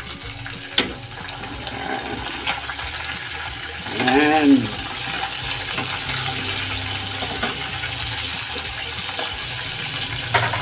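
Chicken wings deep-frying in a small pot of hot oil, a steady sizzle and bubble, with a few sharp clicks of metal tongs against the pot as the wings are turned.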